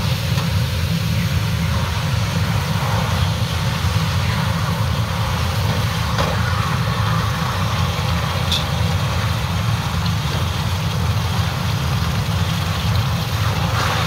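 Steady low motor rumble, like an engine or blower running, with a fainter hiss from a hot cast copper bar quenching in a tray of water.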